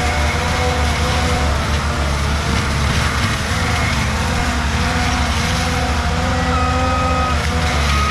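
Skid steer diesel engine running steadily under load for land-clearing mulching, with a constant low hum and wavering whines above it. A brief higher whine comes in about six and a half seconds in.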